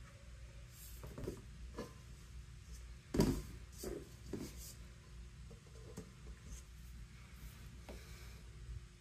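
Spatula scraping moist brown sugar out of a stainless steel mixing bowl into a plastic container, with a few light knocks of bowl and spatula against the container's rim, the loudest about three seconds in.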